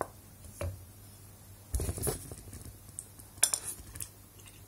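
A few scattered clicks and knocks of a wooden spoon and a plate being handled as stew is spooned out for tasting, with a dull thump about two seconds in and a sharper clatter about a second later.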